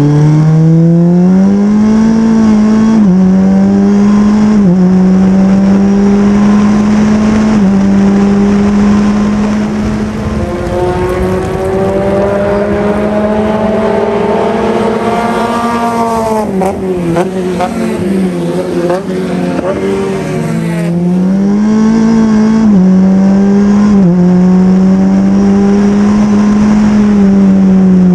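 Super FJ formula car engine at racing speed, revving up and shifting up through the gears with several quick drops in pitch. About halfway the note falls with short throttle blips as the car brakes and downshifts. It then accelerates again, shifting up twice more.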